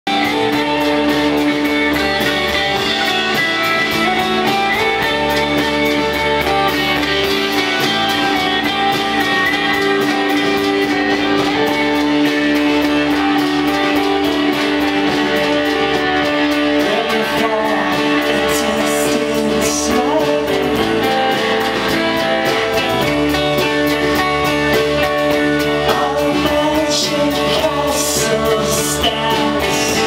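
Live rock band playing: electric guitar to the fore over bass and drums, with singing.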